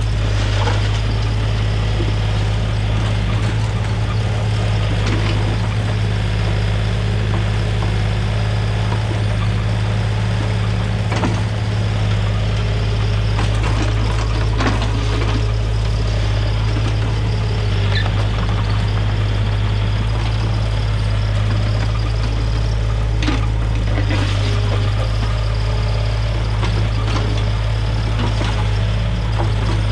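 Komatsu mini excavator's diesel engine running steadily, with a few short metallic clanks now and then.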